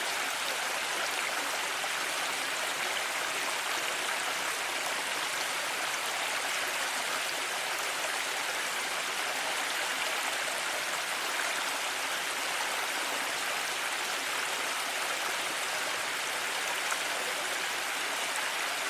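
Mountain ambience: a steady, unbroken rush of running water, with no separate sounds standing out.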